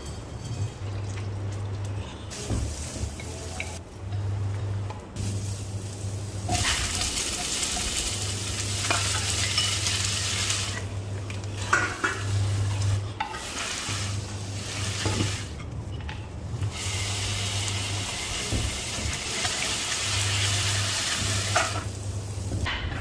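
Food sizzling in hot oil in a pan while it is stirred, with a few light scrapes and taps. The sizzle cuts in and out abruptly several times.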